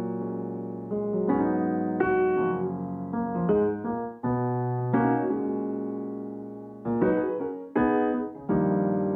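Background music: a piano piece of chords struck and left to ring, a new chord roughly every second.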